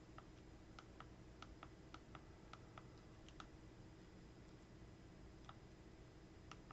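Faint, irregular clicks as a Fire TV Stick menu is stepped through with the remote: a quick run of about a dozen in the first three and a half seconds, then two more near the end, over near-silent room tone.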